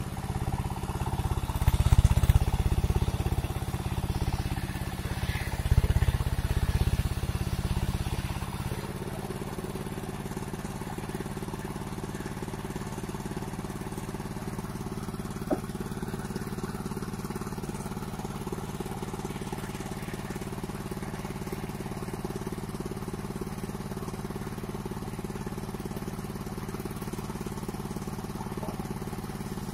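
Engine of a mobile circular sawmill running steadily. For about the first nine seconds it is louder and heavier, with two surges under load as timber is sawn. After that it runs on evenly and more quietly, with one sharp click midway.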